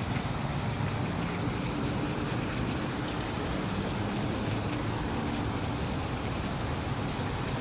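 Steady rush of rain and running water, with a faint low hum in the background for a few seconds partway through.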